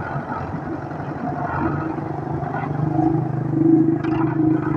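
Russian tractor's diesel engine running under load as its front loader raises a bucket of broken bricks, getting louder about three to four seconds in. A short knock sounds about four seconds in.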